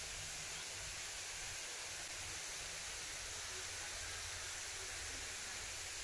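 Steady, even hiss of outdoor background noise with a low rumble underneath; no distinct sound stands out.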